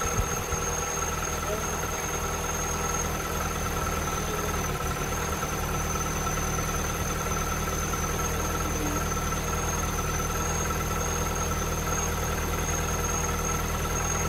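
Mini Cooper's engine idling steadily, with a thin, steady high whine over it.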